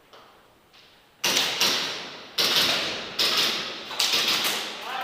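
Airsoft gunfire: about five short bursts of sharp, loud cracks, each trailing off in echo, starting about a second in and following each other less than a second apart.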